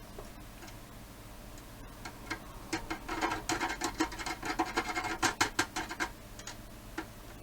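A small metal battery terminal being swished about in cleaning fluid in a plastic tray, rattling and scraping against the tray in quick light clicks and scratches. The clicking is sparse at first and busiest from about two seconds in until about six seconds in.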